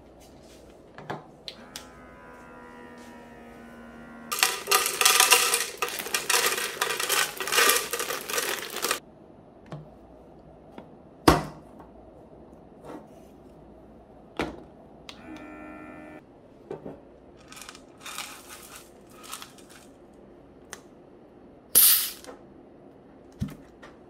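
Plastic vacuum food storage containers being handled on a stone tabletop: sharp clicks and knocks of the lids being pressed and set down, and a loud rattling of dry pasta for about five seconds. Two short hums come in, one about two seconds in and one about fifteen seconds in.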